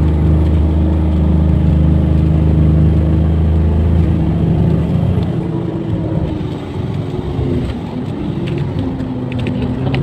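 Engine and road noise of a moving vehicle heard from inside the cabin: a steady low hum that drops away about halfway through, leaving a lighter, wavering rumble.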